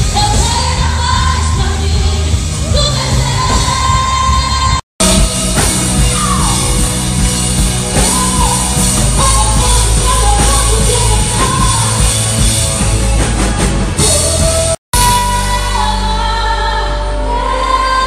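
Live band music with singing: drums, electric guitar and keyboard playing a worship song, recorded by phone from the hall and stage. The sound drops out to silence for a moment twice, about five and fifteen seconds in, where clips are joined.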